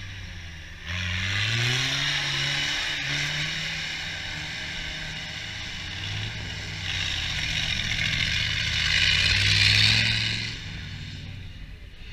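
Off-road trucks' engines revving hard under load in deep mud. The note jumps up about a second in, eases off, then builds again to its loudest shortly before the end and drops away.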